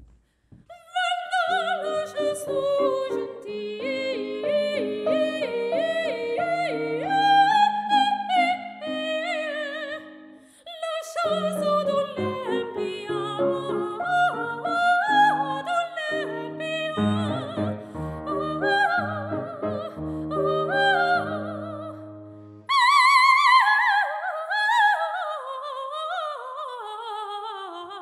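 Operatic soprano singing fast coloratura runs with vibrato, accompanied by grand piano. The voice breaks off briefly about ten seconds in, and its loudest, highest passage comes in descending runs about 23 seconds in.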